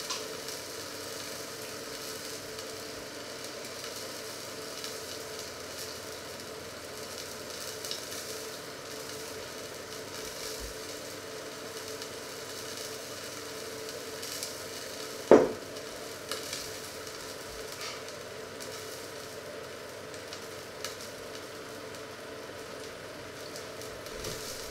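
Steady sizzling from a lidded frying pan heating on the stove, with a single sharp knock about fifteen seconds in.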